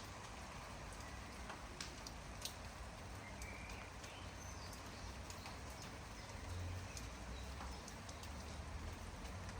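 Light, steady rain with scattered drops tapping close by and a low rumble underneath. A bird gives a short chirp about three and a half seconds in.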